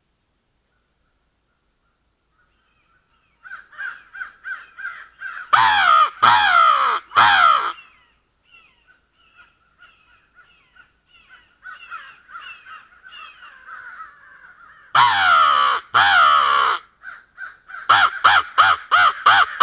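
Crow cawing: loud, close caws with a falling pitch blown on a Crankin' Crow Call, in bursts of a few calls, answered between them by fainter cawing from wild crows. Near the end the caws come quickly, about three a second. The first few seconds are nearly silent.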